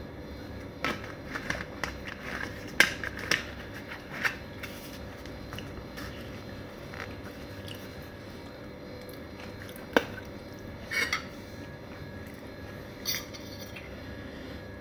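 Close-up eating and drinking noises: swallowing from a plastic soda bottle, chewing noodles, and scattered clicks and taps of the bottle and a fork, the sharpest about ten seconds in.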